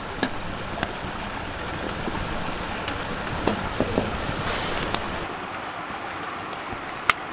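Hotteok dough being handled and pressed onto a metal pan on a wood stove: light taps and soft rustling over a steady rushing background noise. A brief brighter hiss comes a little after four seconds, and a single sharp click comes near the end.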